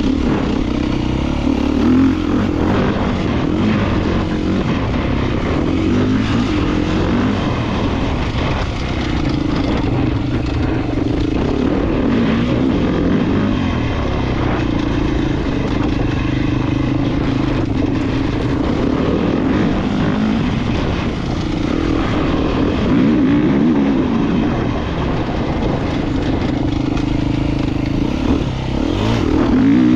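Beta 390 Racing enduro motorcycle's single-cylinder four-stroke engine under way, its revs rising and falling over and over as the throttle is worked.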